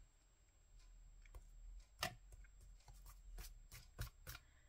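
Faint handling sounds of paper crafting: a scattering of light clicks and taps and soft paper rubbing as hands press a glued paper cut-out flat onto a sketchbook page.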